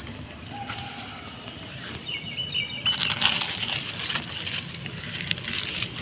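Thin plastic bags and sheeting crinkling and rustling as they are handled by hand, loudest about three seconds in. A short high bird call comes about two seconds in.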